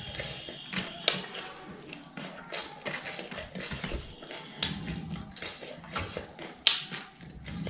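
Fingers mixing and gathering rice on a stainless steel plate: soft scraping and rustling, with a few sharp clicks as fingers or nails strike the metal, three standing out about a second, four and a half and six and a half seconds in.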